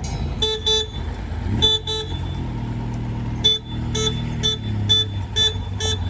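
A vehicle horn tooted in about ten short beeps over an engine running steadily, first in two quick pairs, then roughly two beeps a second.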